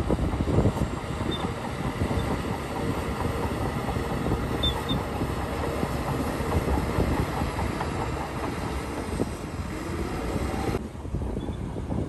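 Crawler bulldozer's diesel engine running with its steel tracks clattering. Near the end the higher hiss drops away sharply, leaving the low rumble.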